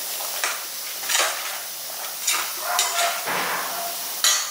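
A metal spoon stirring and scraping a sautéing masala of green peas and soya chunks in a pressure cooker, knocking against the pot about five times over a steady sizzle.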